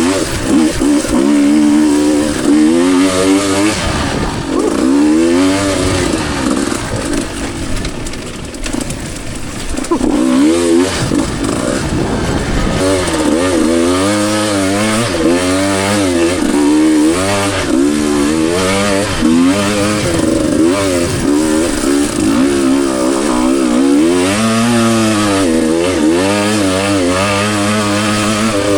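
Two-stroke dirt bike engine working on a trail, its pitch rising and falling again and again as the throttle is rolled on and off. From about four to ten seconds in it drops lower and quieter before picking up again.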